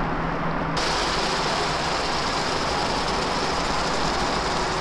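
Steady sizzling of onions and garlic frying in a hot cast iron Dutch oven on a propane camp stove. The sound abruptly turns brighter and hissier about a second in.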